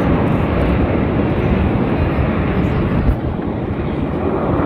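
Jet aircraft engine noise overhead, a steady, dense rumble that eases slightly about three seconds in.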